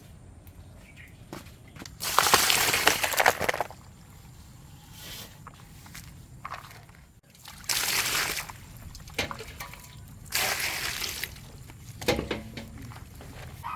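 Water poured out and sloshing in three main splashes about a second long each, with a few shorter splashes between.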